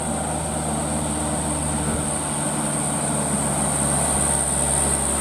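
Diesel engine of a loaded light dump truck pulling uphill with a steady low drone, its note shifting briefly about two seconds in. A steady high-pitched hiss runs underneath.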